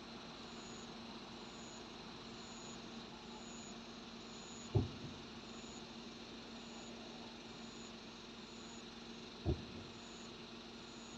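Two distant firework shell bursts heard as dull booms, one about five seconds in and one near the end. A faint insect chirp repeats about once a second.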